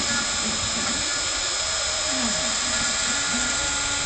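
CNC router engraving wood: the spindle motor runs with a steady high whine and hiss, while the stepper motors hum in lower tones that glide up and down and jump between pitches as the axes move the cutter.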